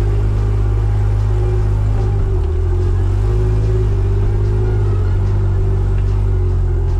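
Four-wheel drive's engine running steadily under light load at low speed on a dirt track, heard from inside the cab as a loud, low drone. The engine note drops slightly about two and a half seconds in.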